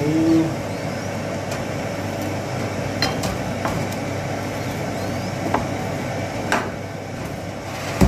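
Steady background hum with a handful of short, sharp clicks or taps scattered through it.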